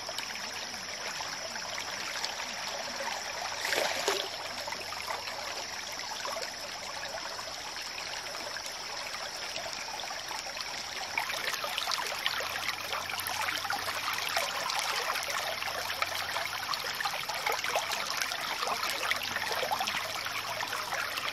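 Shallow stream running and trickling, with small splashes from a catfish moving through the water; a brief louder splash about four seconds in.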